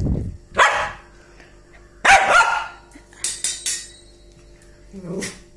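Small white spitz-type dog barking in separate sharp barks, the loudest about two seconds in, then a quick run of shorter barks and a softer one near the end.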